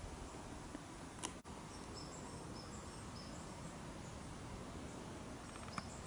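Faint woodland ambience: a steady hiss with a series of faint, short, very high-pitched chirps from distant small birds through the middle, and a single click about a second in.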